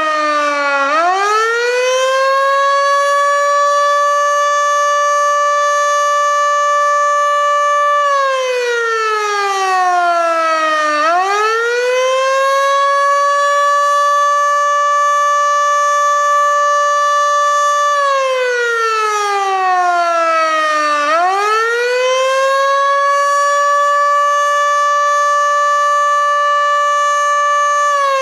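Federal Sign & Signal Model 2 electromechanical warning siren sounding the attack signal. It winds up to a steady high pitch, holds it for about five seconds, then winds down in a falling wail before climbing again, a cycle of about ten seconds that repeats three times.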